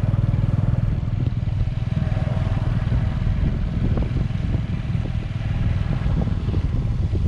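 Motorcycle engine running steadily while riding, a low, even drone.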